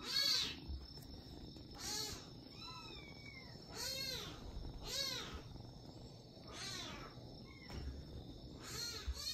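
A young kitten meowing over and over, about once a second: short, high-pitched meows that each rise and then fall in pitch.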